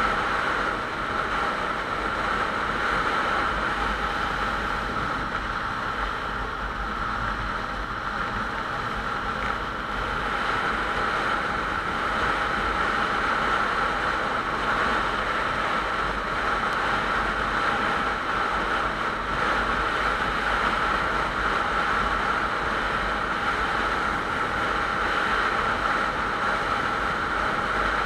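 Motorcycle cruising at a steady highway speed: a continuous rush of wind noise with the engine's drone beneath it, holding even throughout.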